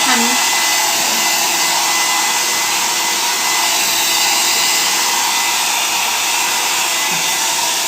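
Nova 1300-watt hair dryer running steadily, blowing a constant rush of air with a faint steady whine.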